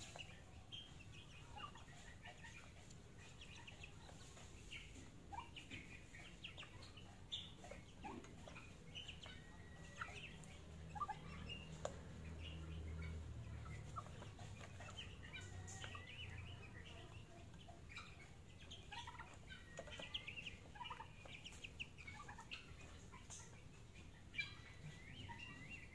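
Chickens feeding, with faint soft clucks and short high cheeps scattered throughout. A low rumble swells in the background about halfway through.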